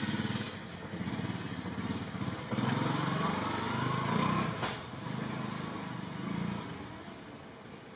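A motorcycle engine running close by, revving with a rising whine about three seconds in, then fading away near the end.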